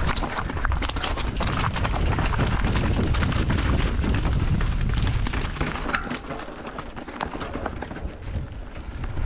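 Canyon Strive enduro mountain bike descending a rough trail: tyres on rock and gravel and the bike rattling with many small knocks, over a heavy wind rumble on the action camera's microphone. It eases off a little for a few seconds in the second half.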